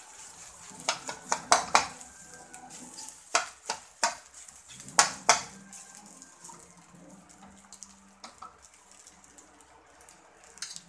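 Metal spoon scraping and clinking against a metal frying pan while fried rice is stirred, over a faint sizzle. The knocks come in quick clusters for the first five seconds or so, then thin out and grow quieter.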